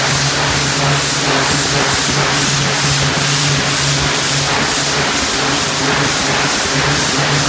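Pressure washer jet spraying down a hog pen: a loud, steady hiss of high-pressure water over a steady low hum.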